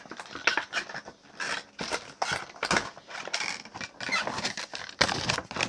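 A Funko Pop figure's cardboard window box being opened and handled: irregular clicks, scrapes and rustles of cardboard flaps and the plastic insert as the vinyl figure is worked out of the packaging.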